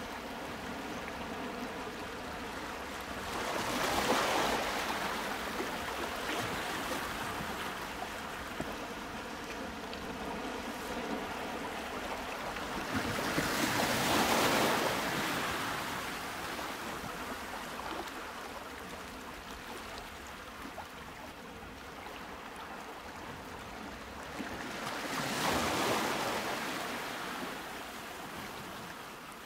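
Sea waves washing in slow swells, three surges about ten seconds apart, over a faint steady hum of tones.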